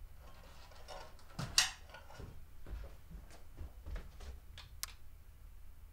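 Footsteps and small knocks on a floor, the loudest about a second and a half in, then a sharp click of a wall light switch being flipped about five seconds in.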